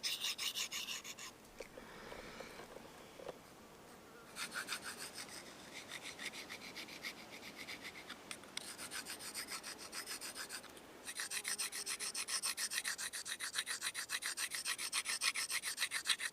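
A Tracker-style knife blade is stroked rapidly back and forth on a sharpening stone: a run of gritty rasping strokes, several a second. The strokes go quiet for a few seconds shortly after the start, then carry on with brief breaks.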